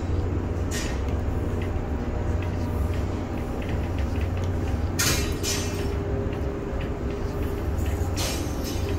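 Container crane machinery running with a steady low hum and faint ticks, broken by short bursts of hissing about a second in, around five seconds in and near the end.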